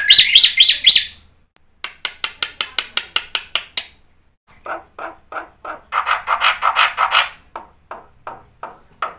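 Black-winged myna (jalak putih) in full song: a few loud rising whistles, then runs of sharp repeated chirps at about four or five a second, broken by brief pauses.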